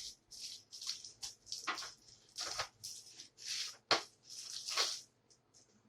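Hands working on the plastic parts of a laptop being taken apart: a run of short scrapes and rustles, with a sharp click about four seconds in.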